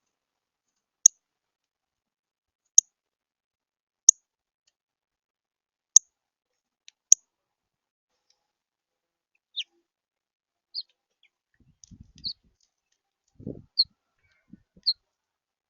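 A small songbird giving loud, sharp single chip notes, one every second or two, then softer chirps. A few low knocks near the end, from something at the feeder, as picked up by the bird feeder camera's microphone.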